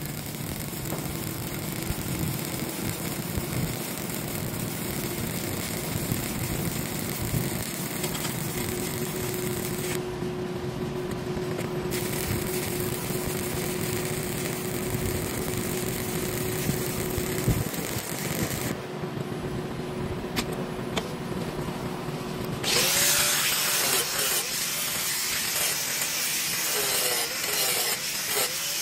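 Stick (MMA) welding arc crackling and sizzling steadily as a bead is run along a steel tank seam. In the last several seconds a louder, harsher hiss takes over as an angle grinder works the weld.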